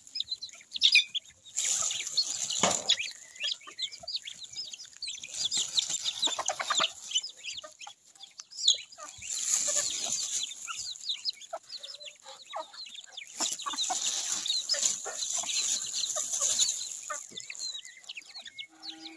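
Backyard chickens clucking, with many high, short peeps from chicks and ducklings among the feeding flock, and stretches of rustling noise.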